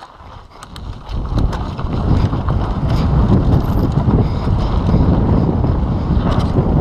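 Wind buffeting the camera microphone and tyres rumbling over a dirt track as a downhill mountain bike picks up speed, with a few clicks and rattles at the start. The rush builds over the first two seconds, then holds loud and steady.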